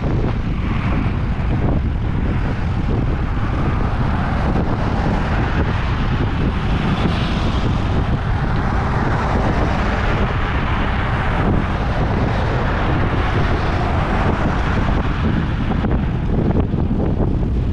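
Steady wind rushing over the microphone of a GoPro carried on a moving fixed-gear bicycle, over a constant low rumble of road noise.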